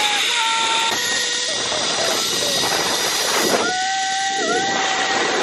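Zipline ride: the trolley's pulleys running fast along the steel cable with the rush of wind, a steady loud hiss with a faint whistling tone that comes and goes.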